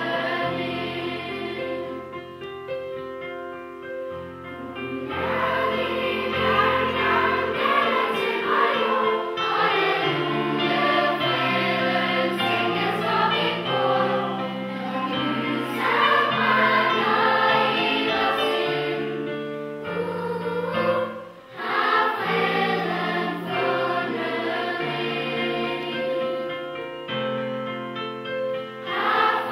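A mixed choir of children and adults singing a hymn-like piece, over sustained low notes that change in steps. The singing breaks off briefly about two-thirds of the way through, then resumes.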